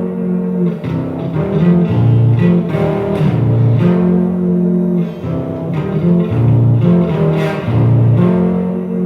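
Instrumental music with no singing: held pitched notes over a low bass line whose notes change about once a second.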